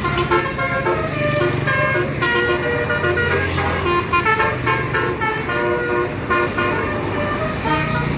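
Bus's musical telolet horn (basuri type) playing a quick tune of short pitched notes, with a low steady tone sounding underneath at times.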